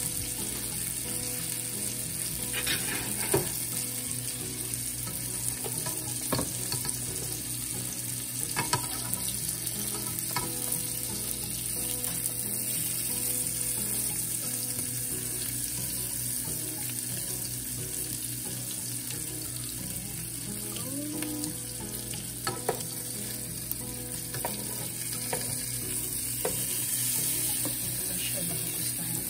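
Sliced ribeye steak, onions and mushrooms sizzling steadily in a nonstick frying pan, with a few sharp clicks and scrapes as two spatulas lift the cheese-topped filling out of the pan.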